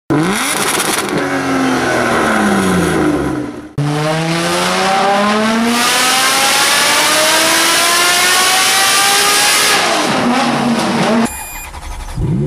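High-performance car engine sounds cut together: an engine note falls in pitch, then after a sudden cut one engine revs up in a long, steady rise as the car accelerates hard, before dying away and cutting again near the end.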